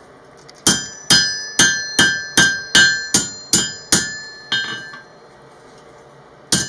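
Blacksmith's hammer striking steel on an anvil, each blow ringing: a steady run of about nine strikes, roughly two and a half a second, then a couple of lighter taps and, after a pause, one more hard blow near the end. The smith is adjusting the curl of a forged camp hook.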